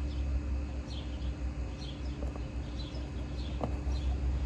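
A bird chirping faintly, a short high call repeating about once a second, over a steady low rumble, with one light tap about three and a half seconds in.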